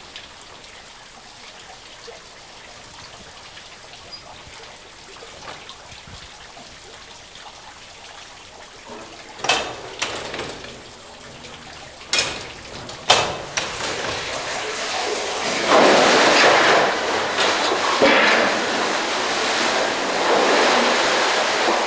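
Newcomen atmospheric steam pumping engine working on its automatic valve gear: a few sharp mechanical clanks, then water gushing and splashing as the pump delivers, louder through the second half.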